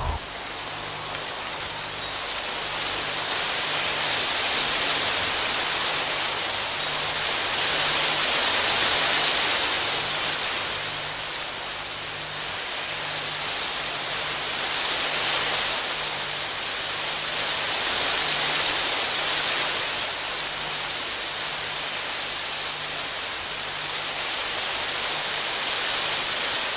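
Steady heavy rain: a dense hiss that slowly swells and eases every few seconds.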